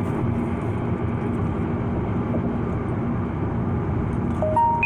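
Steady road and engine noise inside a moving car's cabin. Near the end, a short electronic chime of three notes stepping upward.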